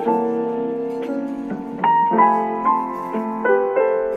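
Background piano music: a slow melody of single notes struck one after another over sustained lower notes.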